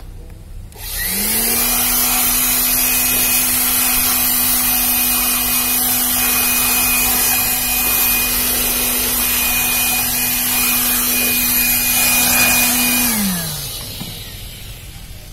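Electric air blower switching on about a second in, its pitch rising quickly to a steady high whine with a loud rush of air. It runs steadily, then is switched off near the end and winds down, falling in pitch.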